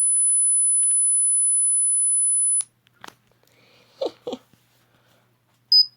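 A phone's dog whistle app sounding a steady, high-pitched tone that cuts off with a click about two and a half seconds in. Near the end a shorter, lower beep sounds briefly.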